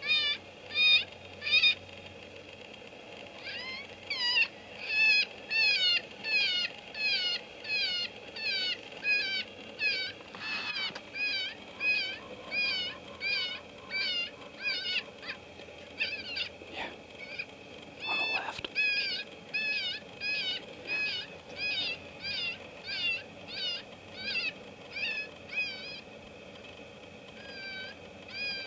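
FoxPro electronic predator caller playing a looped animal distress call: short, high-pitched, wavering cries about twice a second, with a brief pause about two seconds in and another near the end.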